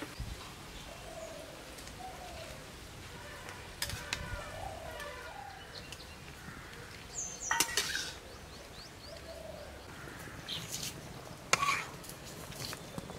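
Metal spatula stirring spinach leaves blanching in hot water in a steel wok, with a few sharp clanks against the pan about four, eight and eleven and a half seconds in. Birds call faintly in the background.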